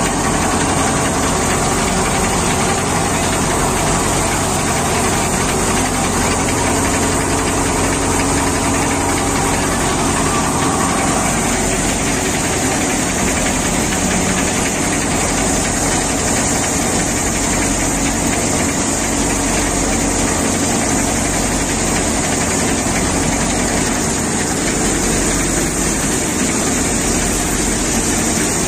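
Vardhman five-fan, basket-fed multicrop thresher running steadily while threshing paddy: a dense, unbroken machine noise from the drum and fans, with a low engine-like hum beneath.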